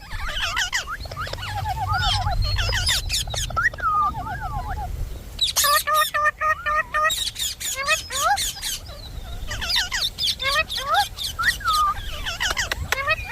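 Indian ringneck parrot chattering: a fast, unbroken run of squeaky chirps and sliding whistles, with quick rattling trills about a second and four seconds in.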